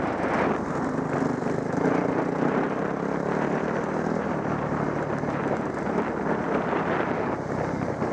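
Off-road trail motorcycle engine running under way. Its note rises over the first couple of seconds, then settles lower and steady.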